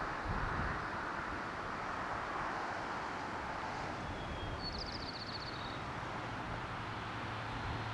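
Steady outdoor noise with no distinct source, with a short, rapid, high bird trill about five seconds in and a low steady hum that starts near the end.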